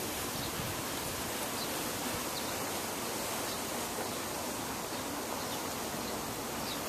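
Steady outdoor hiss of wind, even and unbroken, with a few faint short high chirps now and then.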